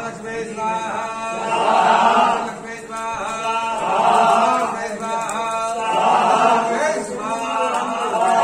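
Men chanting Hindu havan mantras in a phrase about every two seconds, each swelling and then easing off, amplified through a microphone.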